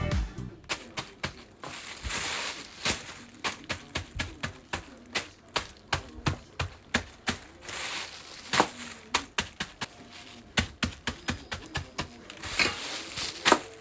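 Irregular light clicks and taps, a few each second, with a few short stretches of rustling in between.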